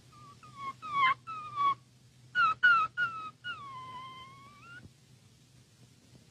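A cat meowing repeatedly: several short, high meows falling in pitch, then a long meow that dips and rises at the end, with a few sharp clicks in between.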